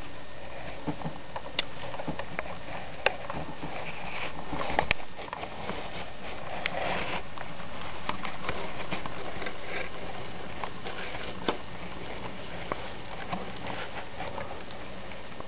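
HO scale model diesel switcher running along the track: a steady motor hum and wheel rumble with scattered clicks as the wheels cross rail joints, louder about halfway through as it passes close by.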